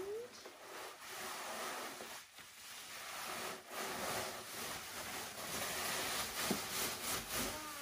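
Plastic bubble wrap rustling and crinkling in uneven swells as a sleeve of it is pulled up and off a tall floor mirror.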